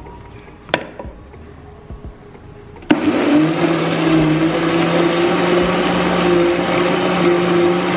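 Countertop blender switched on about three seconds in, then running steadily with a low motor hum and a steady whine as it blends cooked jasmine rice and water into batter.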